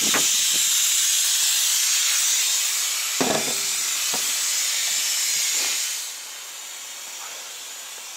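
Compressed air hissing steadily out of a Mercedes-Benz Actros truck's air brake system as its pressure is bled off before the air dryer cartridge is changed; the hiss dies away about six seconds in. A short metallic knock about three seconds in.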